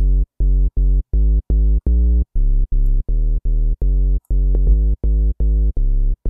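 Serum software-synth bass, a pitched-down triangle wave through a 24 dB low-pass filter with its resonance raised, playing a repeating pattern of short staccato bass notes, about two and a half a second. The notes are deep and dull, with little above the low end.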